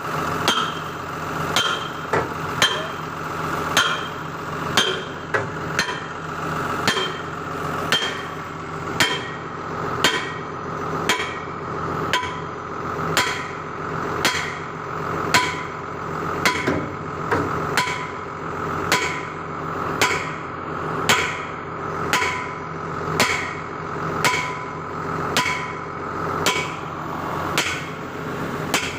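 Hammer striking metal over and over in a steady rhythm, roughly one blow a second, each strike ringing briefly. An engine runs steadily underneath.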